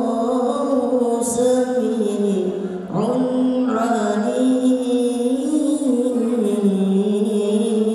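A single male voice chanting solo into a microphone in long, drawn-out melodic phrases, with notes held and ornamented. There is a short breath about three seconds in before the next phrase begins.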